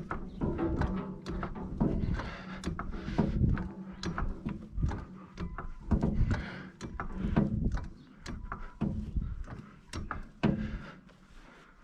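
Irregular knocks, clanks and thunks of a jack being worked and wooden blocks being set under a grinder mixer's frame to lift it off a flat tire.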